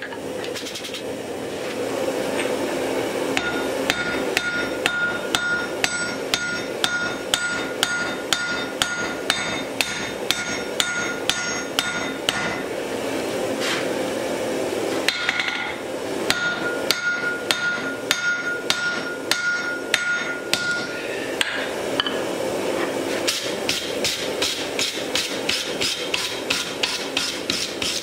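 Hand hammer forging red-hot wrought iron on an anvil in runs of about two blows a second, the anvil ringing a high note through the blows. There are two short pauses, and the last run near the end is faster. A steady rushing noise lies underneath.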